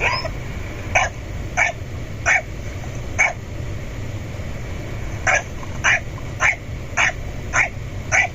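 A dog barking in short, sharp barks: four, then after a pause of about two seconds six more at about two a second.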